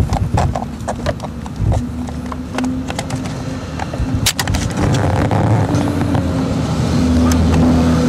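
Clicking and knocking of the shifter linkage and base of a 2008 Mazdaspeed 3 as it is manhandled by hand to pry out the stock shifter bushings. A steady low hum runs underneath and grows louder about halfway through.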